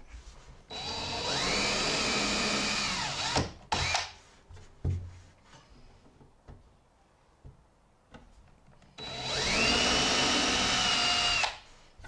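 Cordless 20-volt drill boring small pilot holes with a 1/16-inch bit into a wooden canoe thwart. It makes two runs of a few seconds each: the motor whine rises as it spins up, holds steady, then drops off. A few knocks come between the runs.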